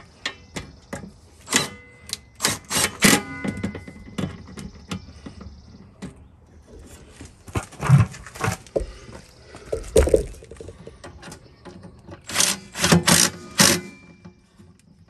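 Cordless drill-driver fastening a zinc anode onto a boat's metal trim tab, in three short spurts of sharp clicking and knocking with a faint motor whine in the first.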